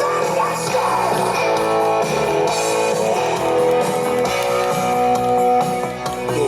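Rock-style background music with guitar, played steadily at a loud level.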